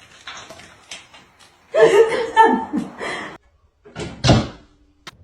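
A voice calls out for about a second and a half, then a single heavy thump comes about four seconds in.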